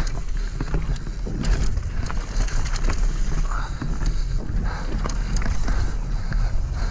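Mountain bike ridden down a dirt trail: wind rumbling on the camera's microphone, with tyres rolling over dirt and frequent short clicks and rattles from the bike over the bumps.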